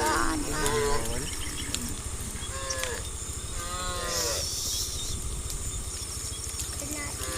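Cows mooing: a short call at the start, then a long low moo that falls in pitch from about two and a half seconds in. A steady low rumble runs underneath.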